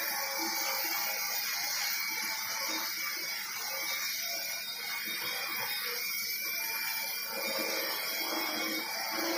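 Multirotor drone hovering, its propellers and motors giving a steady whirring hiss with faint low tones that shift slightly as it moves.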